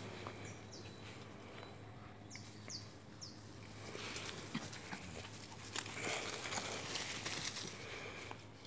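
Small dogs playing on grass and dry leaves: rustling and light scuffling footfalls, louder from about four seconds in. A few short, high, falling bird chirps sound about half a second to three seconds in.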